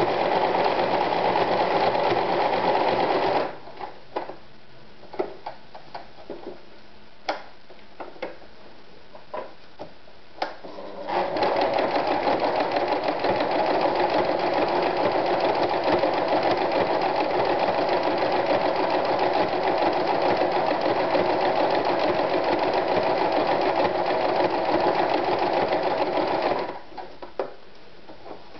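AEG NM 376 electric sewing machine running steadily as it stitches through fabric, stopping after about three and a half seconds. A few scattered clicks follow while it stands, then it runs again for about fifteen seconds from about eleven seconds in and stops near the end, followed by a couple more clicks.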